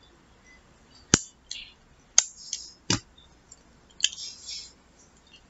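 Eating and plate-handling noises from pizza eaten by hand: three sharp clicks and knocks about a second apart, the third deeper and heavier, with short crackly rustles between them and one more about four seconds in.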